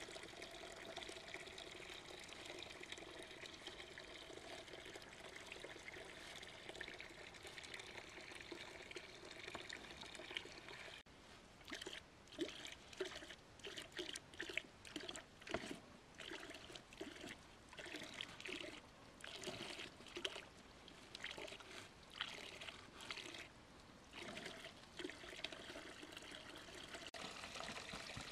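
Water trickling steadily for about ten seconds, then after a sudden change, irregular splashing and gurgling in short spurts.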